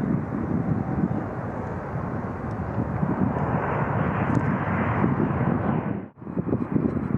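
Jet airliner engines running close by as the aircraft passes, a steady loud jet noise that swells about four to five seconds in. It drops out abruptly for a moment about six seconds in, then similar jet noise carries on.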